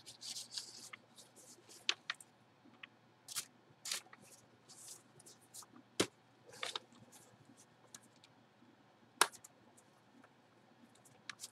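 Intermittent rustling and crinkling of a paper envelope and plastic packaging being handled by gloved hands, with two sharp clicks about six and nine seconds in.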